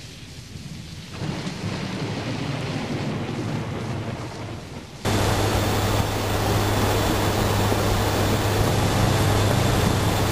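Rain and thunder, swelling about a second in, then an abrupt cut about five seconds in to the steady drone of a WC-130J's four turboprop engines and propellers heard inside the flight deck, a low hum holding one pitch under rushing noise.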